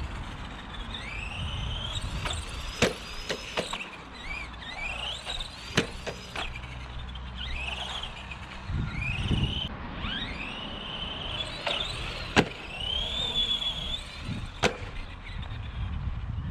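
Arrma Granite 4x4 Mega RC truck's brushed electric motor whining up and down in pitch as it is throttled on and off, with several sharp knocks as the truck lands or hits the concrete.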